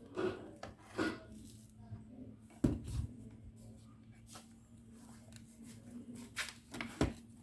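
Handling noises on a repair bench: scattered knocks, clicks and rubbing as tools and a circuit board are moved about. A faint steady hum sets in a couple of seconds in.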